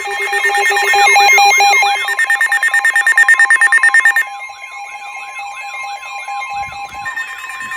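Several emergency alert alarms sounding at once: steady alert tones layered with warbling, siren-like sweeps and a fast pulsing beep. The loudest, pulsing part stops a little after four seconds, and the steady tones and sweeps carry on.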